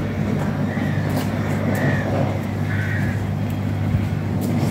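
British Rail Class 66 locomotive's two-stroke V12 diesel running with a steady low drone. A few short high chirps sound over it.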